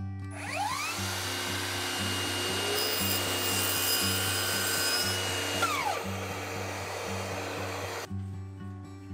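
An electric power tool motor spins up with a rising whine and runs with a steady high whine and a rushing noise. It winds down about six seconds in, and the noise cuts off suddenly near eight seconds. Acoustic guitar background music plays underneath.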